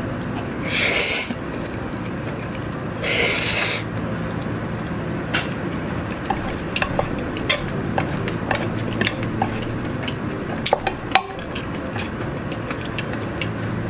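Close-miked eating of jjapaghetti noodles: two short slurping sounds early on, then chewing with scattered sharp clicks of chopsticks and a spoon against the bowl.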